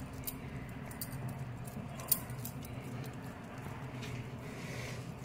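Faint handling sounds of hands rolling soft mashed potato-corn balls and setting them on a steel plate: light ticks, with one sharper click about two seconds in, over a steady low hum.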